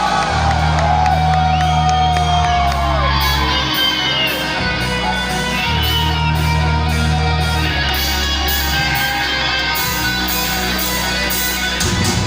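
Heavy metal band playing live: distorted electric guitar lead lines over sustained bass notes and drums, with faint crowd shouts.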